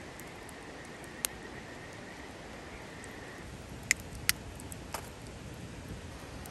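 A few sharp, isolated clicks or pops over a steady faint hiss: one about a second in, two close together just before the middle, and one more shortly after.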